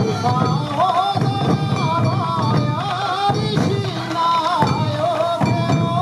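Sansa odori festival music: many taiko drums beaten together by the dancers, with a high, wavering bamboo flute melody over the drumming.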